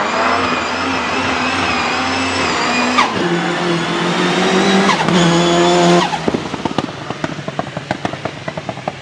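Nissan 200SX S13's turbocharged 1.8-litre four-cylinder held at steady high revs under load, dropping in pitch at gear changes about three and five seconds in. At about six seconds the throttle is lifted and the turbo flutters with a rapid chatter that fades away.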